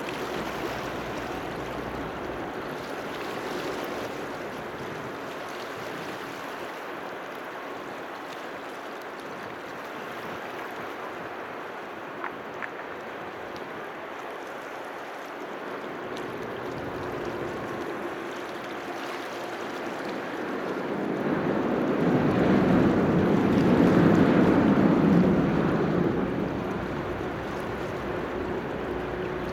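Car ferry's engines droning with a faint steady hum under wind and water noise as the ship comes in to the quay. The drone swells to its loudest about three-quarters of the way through as the ship draws close, then eases.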